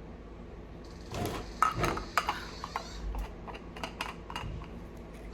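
Irregular clicks, taps and light clatter, starting about a second in, over a low steady background hum: household handling noise.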